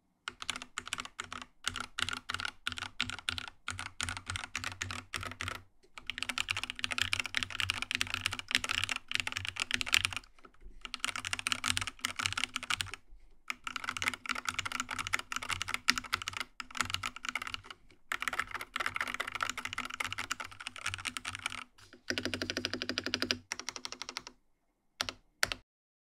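Fast typing on an IQUNIX F97 mechanical keyboard with TTC ACE switches: a steady clatter of keystrokes in runs of several seconds with brief pauses. It stops shortly before the end, with a few last lone keystrokes.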